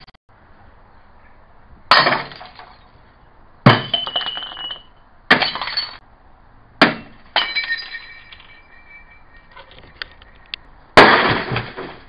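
An axe smashing into a wrecked microwave oven, about six blows, each one crunching broken glass with clinking debris after it. A couple of the blows leave a short metallic ring.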